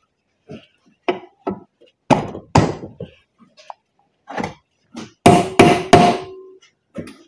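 A hammer striking a new U-joint bearing cap, driving it into the yoke of a Dodge Ram 2500 front axle shaft held in a vise: about a dozen uneven metal blows. The last three, near the end, are the hardest and leave a brief metallic ring.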